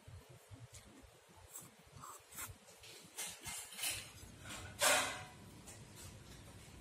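Close-up eating sounds: a man chewing a mouthful of steamed fish, with short wet mouth noises and a louder breathy sniff about five seconds in.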